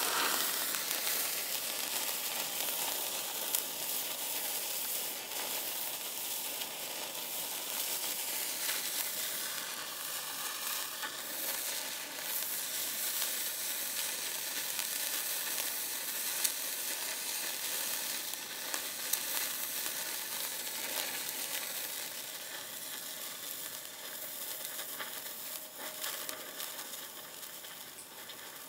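Handheld 'Golden Spark' sparkler burning: a steady fizzing hiss thick with tiny crackles as it throws sparks, easing off near the end as the sparks give out.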